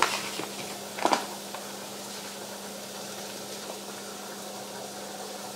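Steady low electrical hum over faint room noise, with a brief knock and rustle about a second in.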